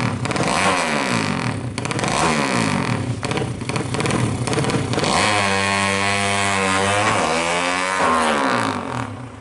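A 200cc racing motorcycle engine running hard. Its pitch falls in repeated sweeps over the first few seconds, then holds a steady high note for about two seconds, and drops away near the end.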